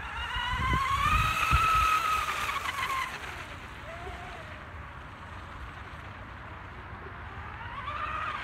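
RC mini racing catamaran's motor whining at speed. The whine rises in pitch and loudness over the first second, holds, then falls away by about three seconds in as the boat runs off. It rises again near the end.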